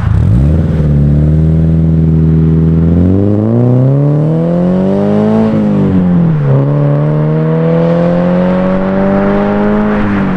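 Subaru BRZ's flat-four engine accelerating away through the gears: the engine note holds steady for a few seconds, then climbs, falls at an upshift about five and a half seconds in, climbs again and falls at another upshift near the end.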